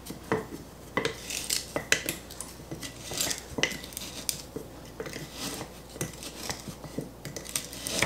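Wooden spoon stirring diced apricots and sugar in a glass quart mason jar: irregular scrapes and knocks of the spoon against the glass.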